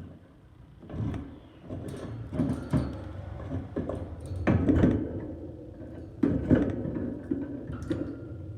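Irregular knocking and clattering starting about a second in, with several sharper thumps, as the fittings of a birdcage are handled and moved about.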